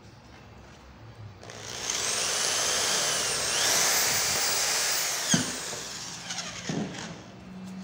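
Handheld electric drill boring through a plastic lamp-holder base. The motor whine starts about a second and a half in, steps up in pitch midway, and winds down after about five seconds, followed by a couple of knocks.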